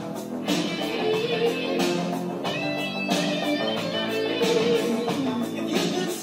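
Guitar-led rock music playing from a vinyl LP on a turntable.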